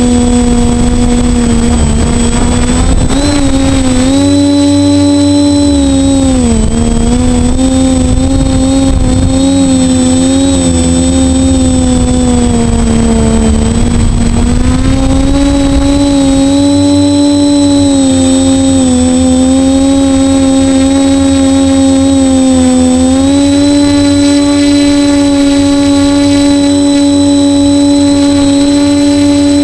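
DJI 450 quadcopter's worn 2208 brushless motors and propellers buzzing in flight, the pitch sagging and rising with the throttle: it dips a few seconds in and again near the middle, then settles higher for the last few seconds. A low rumble runs underneath.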